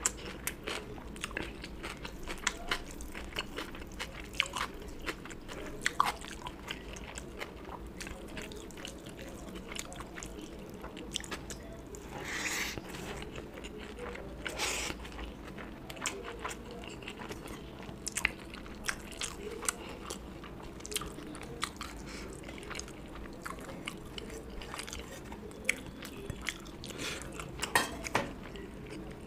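A person chewing food close to the microphone: a steady run of short wet mouth clicks and smacks, with a few louder, longer sounds about twelve and fifteen seconds in and near the end.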